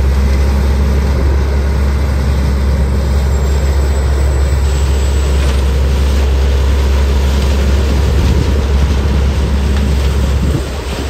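Trailer-mounted leaf vacuum loader running at full power, its engine and suction fan making a loud, steady drone with a deep hum as the hose sucks up a pile of dry leaves. It eases off slightly near the end.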